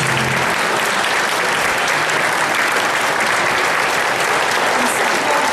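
A congregation applauding, a steady dense clatter of many hands, with the choir's last sung chord dying away in the first half second.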